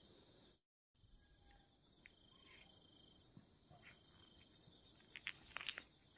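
Faint, steady chorus of crickets and other insects, broken by a brief dropout just under a second in, with a few short clicks near the end.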